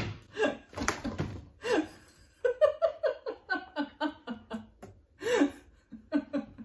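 A woman laughing, breaking into a quick run of short laughs in the middle.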